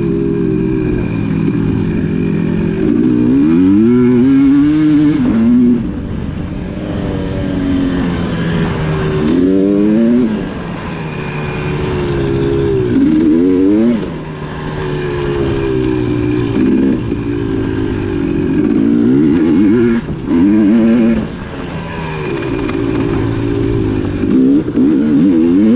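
Dirt bike engine under race load, revving up and down over and over. Several times its pitch climbs and then drops off sharply as the rider shifts or backs off the throttle.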